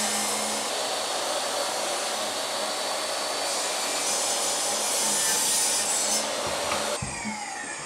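DeWalt jobsite table saw ripping a white trim board, its motor and blade running steadily through the cut. About seven seconds in the motor is switched off and the blade winds down with a falling whine.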